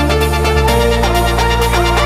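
Background electronic music with a sliding synth bass and melodic lead.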